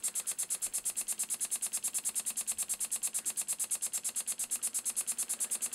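Elmer Verburg No. 24 model beam engine running steadily on compressed air: an even, rapid chuff of exhaust air, about ten puffs a second, with the light clatter of its small linkage.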